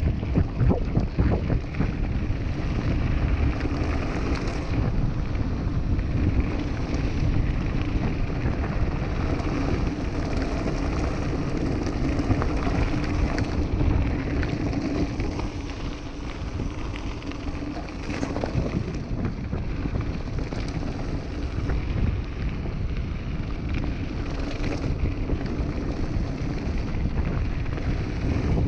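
Mountain bike riding fast down a loose gravel track: wind rushing over the microphone, tyres crunching over the gravel, and many small knocks and rattles from the bike.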